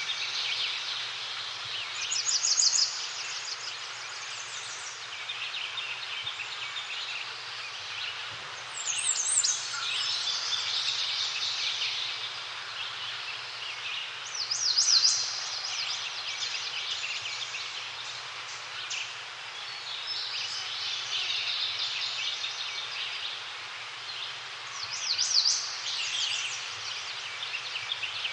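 Several forest birds singing and chirping over a steady background hiss. One bird repeats a loud, rapid, high trilling phrase about every six seconds, four times in all.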